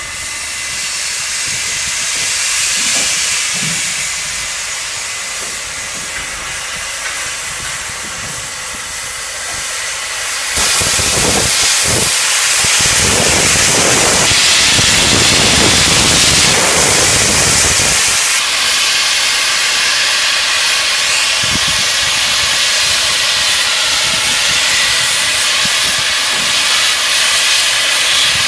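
Steam hissing from NSWGR 36 class steam locomotive 3642, a 1926 Clyde Engineering engine, as it edges slowly in reverse. A much louder rush of steam comes in about ten seconds in and eases back after about eight seconds.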